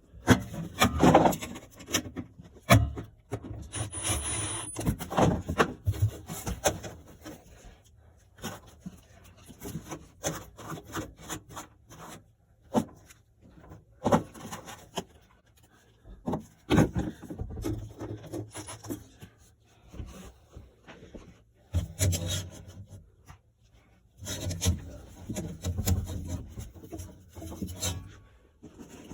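Irregular scraping, rubbing and clicking of tools and metal parts being handled, with short knocks and quieter pauses in between.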